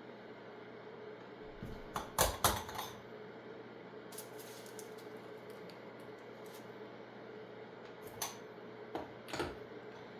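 Small metal tools clicking and tapping at a soldering bench: a quick cluster of sharp clicks about two seconds in, scattered light ticks, and a few more clicks near the end, over a steady faint hum.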